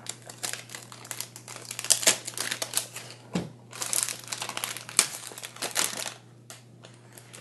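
Paper and cardboard fragrance packaging rustling and crinkling as a box is opened and its contents unwrapped by hand, in quick irregular bursts that thin out near the end.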